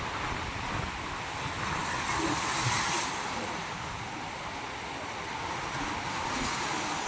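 Ocean waves surging and washing over a rocky beach, with one wave swelling loudest about two to three seconds in before easing back.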